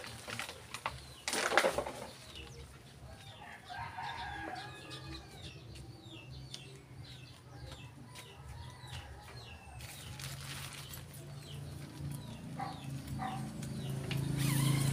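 Chickens clucking and small birds chirping in short calls, with a brief rustle of nylon tent fabric about a second and a half in.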